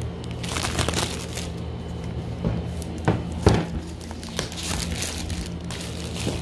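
Clear plastic wrap crinkling and crackling as it is handled and pulled off a cardboard product box, in irregular crackles with the loudest about three seconds in. Steady background music plays underneath.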